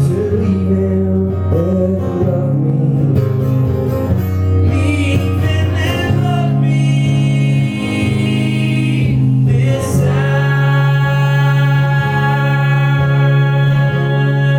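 Live song performance: sustained chords with a man singing over them.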